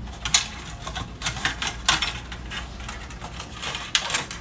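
Irregular small clicks and light metallic clatter of a screwdriver and screws against the instrument's metal chassis, as the power supply's mounting screws are taken out.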